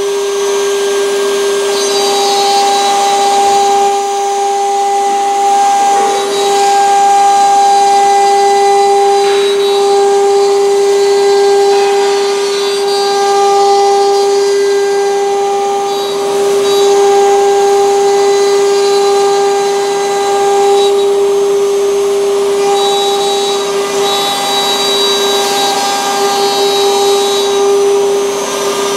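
Eight-spindle CNC wood carving router running, its spindles cutting into a wooden board: a steady high whine over the noise of the cutting.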